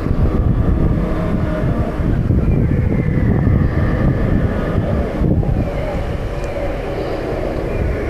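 Dinosaur sound effect played over a loudspeaker: a loud, deep, rumbling growl with a few faint gliding higher tones.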